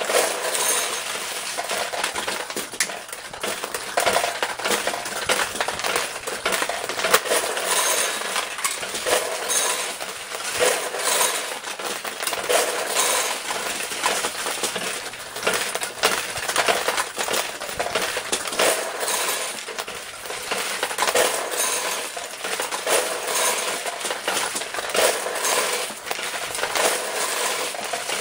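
1975 Sankyo "Tipsy King" semi-automatic pachinko machine in play. A steady stream of steel balls clatters down through the brass pins with a dense, continuous metallic chinking and rattling.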